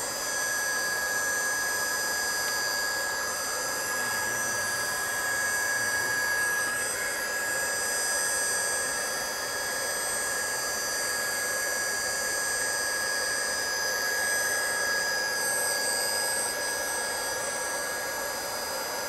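Handheld plastic welding gun running steadily, its blower pushing hot air onto the plastic hull to preheat it before welding, with a steady high whine over a rushing hiss.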